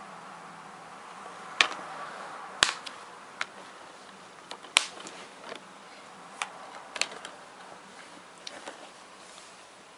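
Plastic DVD cases clicking and knocking as they are closed and handled: a dozen or so sharp, irregular clicks over a faint steady hiss.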